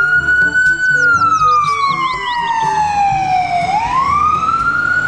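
Ambulance siren wailing: its pitch rises, falls slowly for a few seconds, then starts to rise again near the end.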